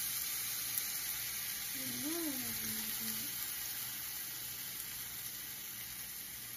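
Finely chopped onion, carrot, potato and broccoli sizzling in hot oil in a frying pan: a steady hiss. About two seconds in, a short voiced 'ooh' rises and falls over it.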